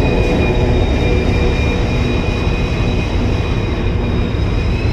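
WDG4 diesel locomotive's engine running steadily beside the platform: a deep rumble topped by a high, steady whine that rises slightly near the end.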